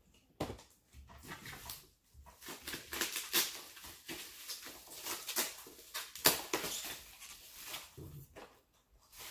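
Plastic packing material rustling and crinkling as hands dig through a cardboard shipping box, with a sharp crackle about six seconds in.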